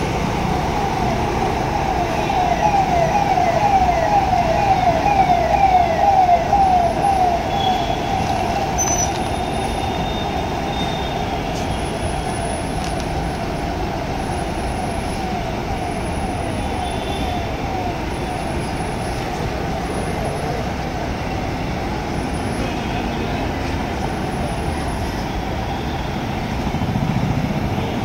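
A bus engine running with a low rumble, under a rapidly repeating falling electronic chirp, about three or four a second. The chirp is loudest a few seconds in and fades away over the next ten seconds or so. The engine rumble swells near the end.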